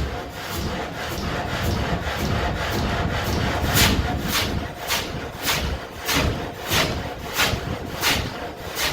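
Water-powered muley saw, a vertical reciprocating blade, cutting into a log: a sharp rasping stroke about every 0.6 s, roughly 100 strokes a minute, over a steady low rumble.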